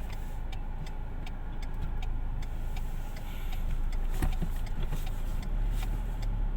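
Car engine running at low speed, heard from inside the vehicle, with a regular ticking about three times a second and one sharper click a little past the middle.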